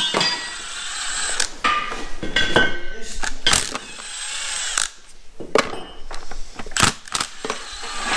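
Cordless drill-driver with a socket extension spinning bolts on an engine's cylinder head in short runs, mixed with sharp metallic clicks of small metal parts being handled.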